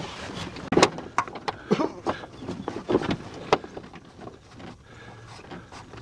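Several sharp clicks and knocks from work on a 2001 Nissan Xterra's front door hinge while the sagging door is lifted, about five in the first three and a half seconds, then quieter.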